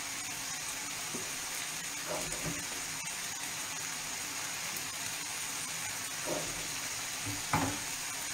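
Pot of water boiling on a gas stove, a steady hiss, with a few faint knocks as spelt gnocchetti are tipped off a board into it.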